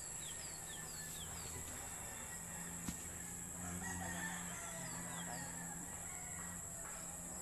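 A rooster crowing faintly over a steady high drone of insects, with a few short falling bird chirps near the start and a single sharp click about three seconds in.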